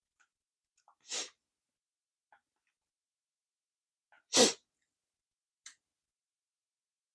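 Two short, sharp puffs of breath from the eater, a moderate one about a second in and a much louder one at about four and a half seconds, with a few faint small clicks in between.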